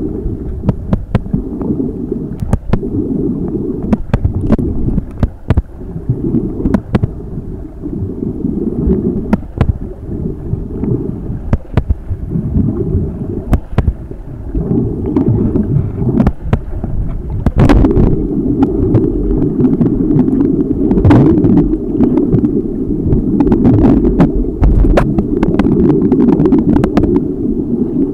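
Muffled underwater noise from a camera held underwater: a low rushing and sloshing of water, broken by many sharp clicks and knocks. It grows louder and steadier a little past halfway.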